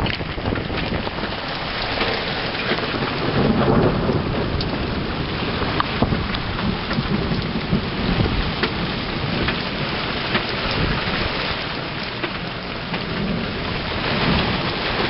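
Hailstorm: hail and rain pelting down in a dense, steady clatter, with many sharp individual ticks of hailstones striking, and heavier low swells twice.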